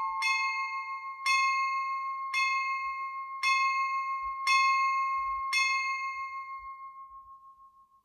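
Church bell ringing of a Russian Orthodox water-blessing peal (vodosvyatny perezvon): one bell struck six times about once a second, each stroke ringing on into the next. After the last stroke, about five and a half seconds in, the ring fades away as the peal ends.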